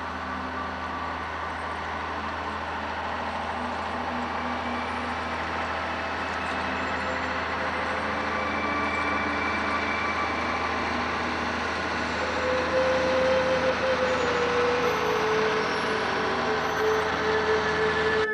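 Heavy logging truck's engine running under load, slowly growing louder, its pitch stepping down about two-thirds of the way through.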